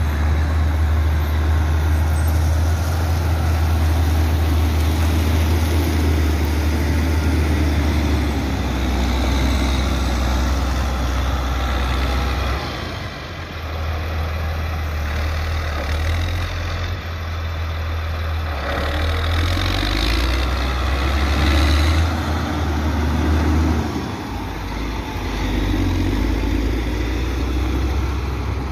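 Caterpillar 120K2 motor grader's diesel engine running steadily with a deep drone as its blade spreads and levels a granular sub-base gravel layer, with the gravel crunching and scraping under the blade and tyres.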